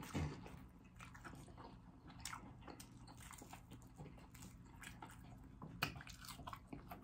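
Close-up eating sounds of pancake-battered fried chicken: soft clicks and tearing as the meat and crust are pulled apart by hand, with chewing, and a louder bite about six seconds in.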